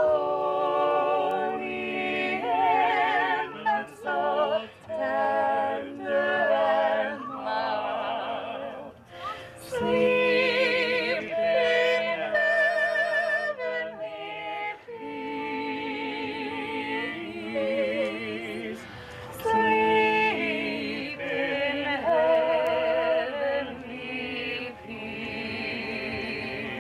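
Singing with strong vibrato on long held notes, phrase after phrase, with short breaks between phrases.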